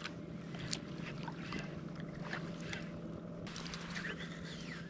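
Steady low hum of an electric trolling motor running, with a few faint ticks over it.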